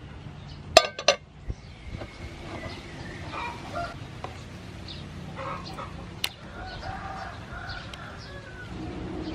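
Chickens clucking in the background over a low steady bubbling haze, with sharp clacks of metal kitchen tongs: two close together about a second in and one more a little after six seconds.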